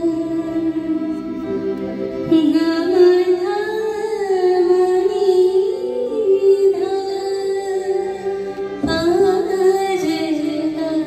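Live ghazal music from a small ensemble of harmonium, violin, guitar and keyboard, with long held notes gliding from pitch to pitch and a singer's voice.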